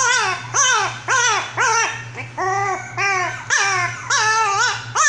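A dog whining in a rapid, unbroken series of high cries, about two a second, each rising and then falling in pitch, over a faint steady low hum.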